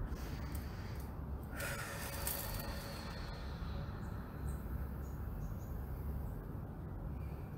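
Room tone with a steady low rumble, broken by a brief hiss about a second and a half in that lasts just over a second; a few faint ticks follow.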